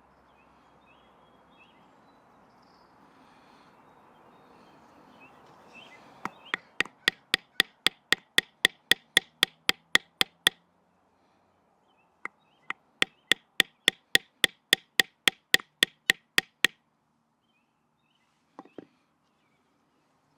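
A wooden baton knocking on the spine of a Victorinox Ranger Swiss Army knife to split wood. There are two runs of quick, evenly spaced knocks, about five a second, each lasting about four seconds, and one faint knock near the end.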